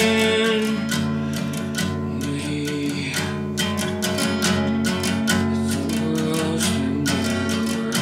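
Guitar being played: chords struck again and again, mixed with picked single notes that ring on.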